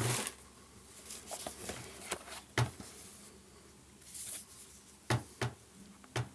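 Handling noises of a smartphone and its packaging: a few sharp taps and clicks, each with a small thump, and brief rustles.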